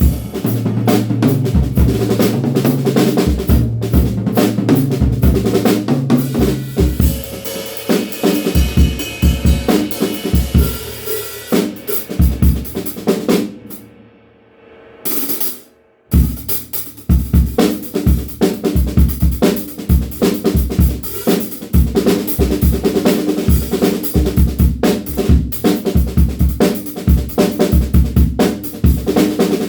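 DW Frequent Flyer drum kit being played: bass drum, snare, rimshots and hi-hat in grooves and fills, with low tom-like ringing in the first few seconds and more cymbal wash a little later. About fourteen seconds in the playing stops for roughly two seconds, broken by a single hit, then starts again with a steady beat.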